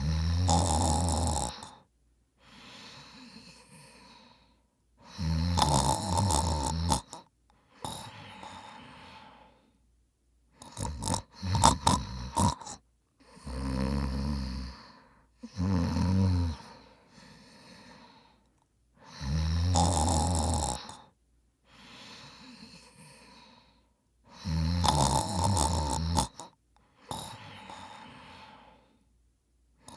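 A man snoring in his sleep: loud snores every few seconds, with softer breaths between them and a choppier, broken snore near the middle.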